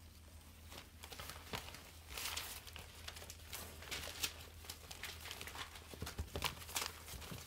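Puppies scrambling and wrestling on newspaper and a towel: irregular rustling, crinkling paper and scrabbling claws, busier after about two seconds, over a low steady hum.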